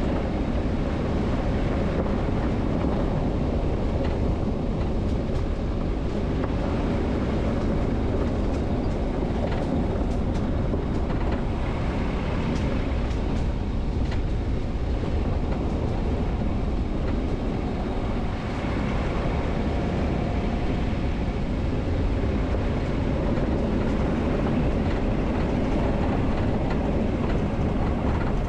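Vehicle driving steadily on a forest road: continuous tyre and engine rumble with faint scattered ticks and rattles.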